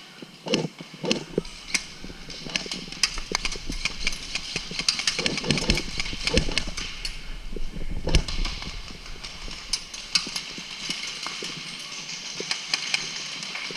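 Indoor airsoft game: irregular sharp clicks and knocks of airsoft guns firing and BBs striking walls and barriers, over a steady hiss, thickest about halfway through.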